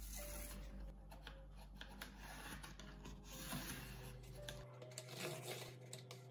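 A pencil scratching lines on thick corrugated cardboard along a ruler, with the cardboard and ruler rubbing and shifting under the hands and many small clicks.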